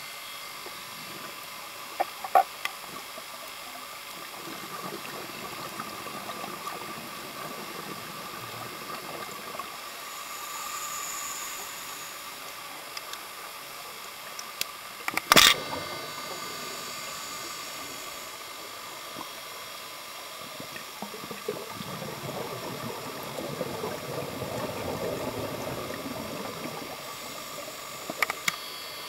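Underwater sound picked up through a camcorder's underwater housing: a steady hiss with scattered clicks, one loud click about halfway through. Crackling bubbling of scuba divers' exhaled air grows over the last third.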